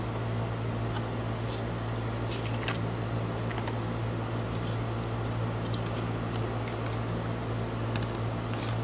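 A steady low background hum, with a few faint light clicks and rustles as foil hockey card packs are handled.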